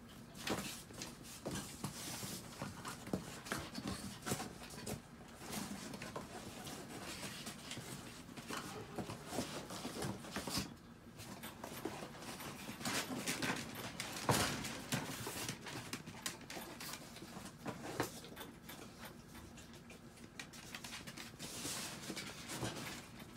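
Chihuahuas' claws pattering and scratching on a floor mat as they move about, with scattered clicks and rustles.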